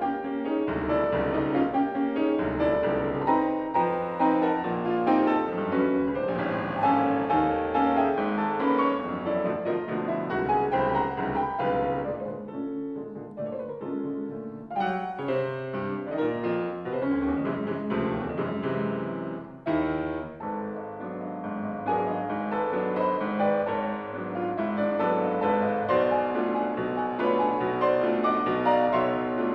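Steinway grand piano played solo: fast, dense chords over a low bass line, thinning out for a few seconds around the middle.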